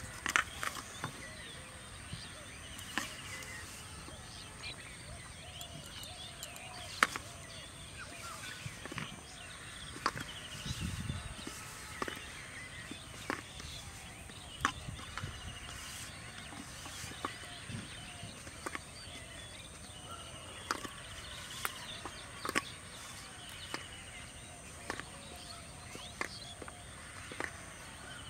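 Rural outdoor ambience: birds chirping, a steady high whine underneath, and scattered sharp clicks and taps at irregular intervals, the loudest about seven seconds in.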